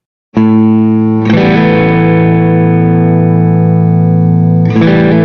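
Background music with distorted electric guitar playing held chords that change about a second in and again near the end. It starts abruptly after a brief moment of silence.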